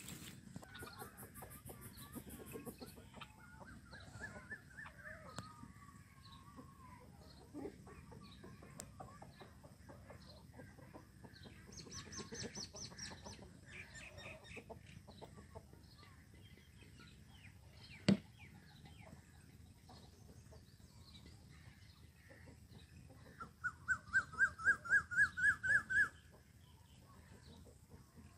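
Several birds calling, among them red-vented bulbuls: scattered short chirps and trills, then a loud fast run of about ten notes near the end. A single sharp knock about two-thirds of the way through.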